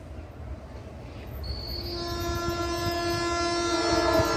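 Approaching express train sounding a long, steady horn blast from about two seconds in, growing louder over a low rumble from the train on the track.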